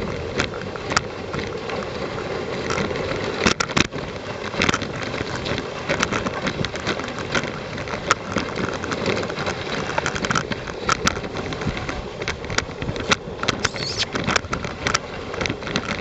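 Dog sled running over snow behind a trotting dog team: a steady scraping hiss from the runners, with irregular clicks and knocks from the sled throughout.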